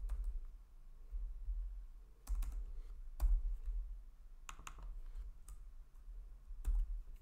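Scattered clicks of a computer keyboard and mouse, single or in quick pairs with gaps of a second or so between them, over a low steady hum.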